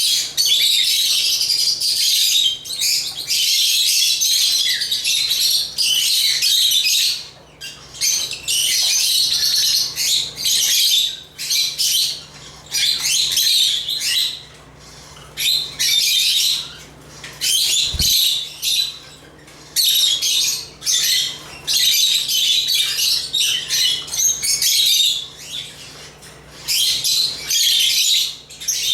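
African lovebirds chirping shrilly and rapidly in dense bouts with short pauses between them. There is a single low thump about two-thirds of the way through.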